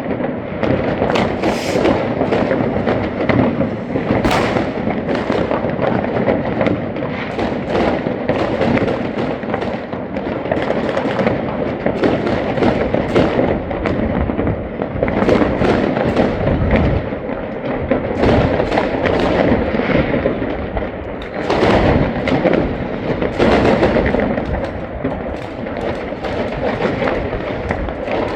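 New Year's Eve fireworks: a dense, unbroken barrage of many rockets and firecrackers going off at once, overlapping bangs and crackling with no pause.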